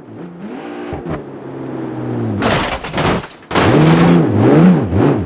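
A car engine revving, its pitch rising and falling several times, with a loud rushing hiss lasting about a second midway through.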